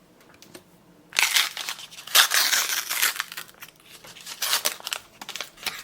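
A Star Wars Unlimited booster pack wrapper being torn open and crinkled. A long rustle starts about a second in and is the loudest part, followed by shorter crinkles near the end.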